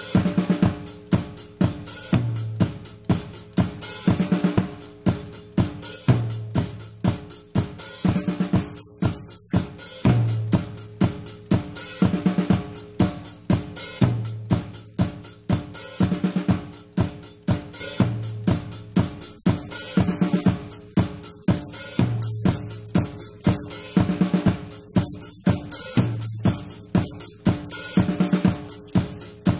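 Drum kit playing a steady beat of kick, snare, hi-hat and cymbals, in a pattern that repeats about every two seconds.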